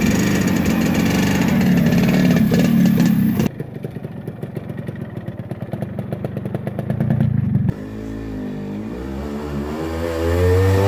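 Motorcycle engine running. It is loud for the first three seconds or so, then drops to a fast, steady putter, then revs with rising pitch in the last few seconds.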